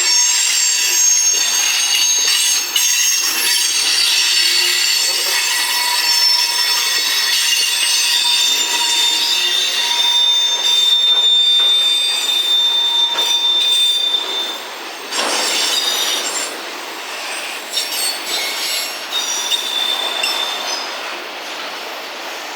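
Freight train cars rolling past with their wheels squealing in several high, steady tones over the rumble of the train. The squeal is loudest for the first three-quarters and then eases off, with a few clicks from the wheels near the end.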